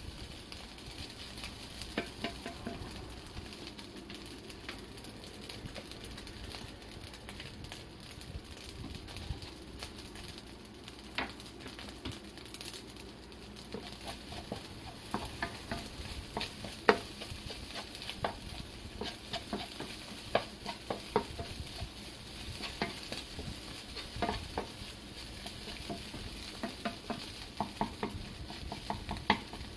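Fried rice sizzling in a nonstick frying pan while a wooden spatula stirs and breaks it up, with frequent sharp taps and scrapes of the spatula against the pan that come more often in the second half.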